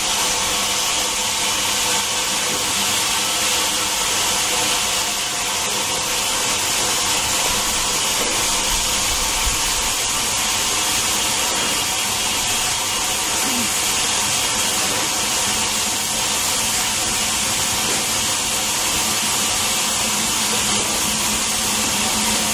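Steam locomotive letting off steam: a steady, loud hiss that holds without a break.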